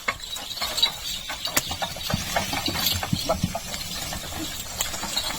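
Bullock cart on the move: irregular clicks, knocks and rattles of the cart, with a few duller thumps in the middle.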